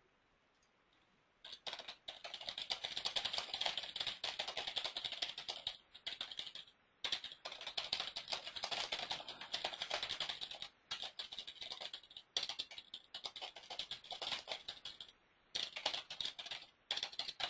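Typing on a computer keyboard: fast, continuous key clicks in runs of a few seconds with short pauses between them, starting about a second and a half in.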